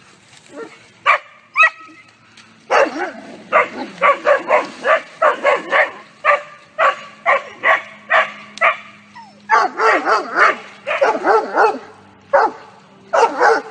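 Dog barking in fast, repeated runs, with only a couple of barks in the first two seconds before the barking becomes continuous.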